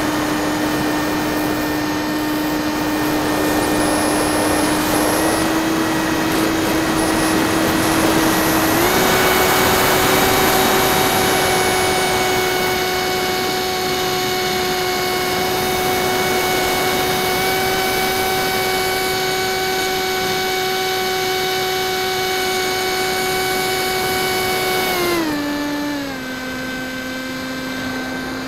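Bixler 1.1 RC plane's brushless electric motor and pusher propeller, heard from on board, whining steadily over rushing air. The whine steps up in pitch twice in the first third and drops sharply near the end as the motor slows.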